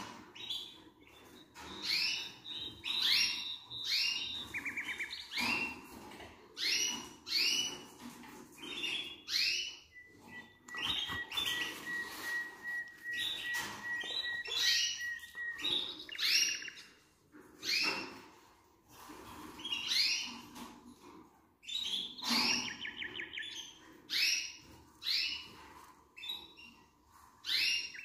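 Canaries calling and singing: a steady run of short chirps with a few fast trills, and a long even trill held at one pitch for about five seconds, starting some ten seconds in.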